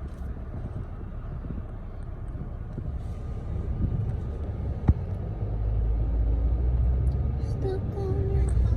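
Low outdoor vehicle rumble that grows louder about halfway through as a large vehicle draws near, with a single sharp click just before.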